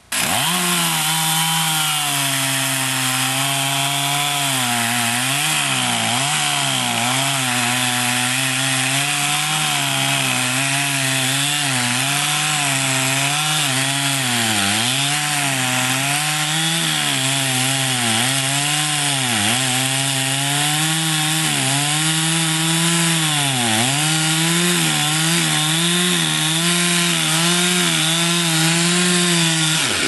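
Chainsaw cutting through a log, its engine pitch sagging and recovering again and again as the chain bites into the wood.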